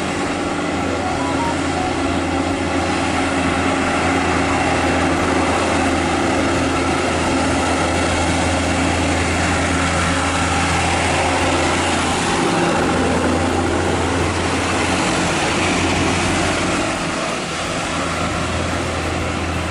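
Diesel engines of heavy trucks running as they pass, a steady low drone with a slight change in note in the second half.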